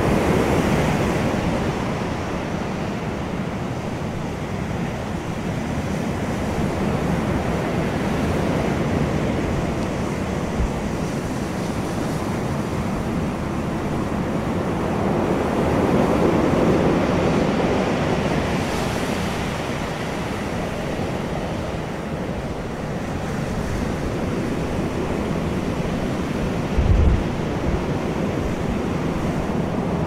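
Surf washing onto a pebble beach: continuous wave noise that swells near the start and again around the middle, then eases. A brief low thump near the end.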